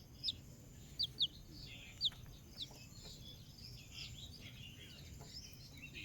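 Young chicks peeping: short, high peeps that slide downward, five in the first three seconds, then fainter twittering.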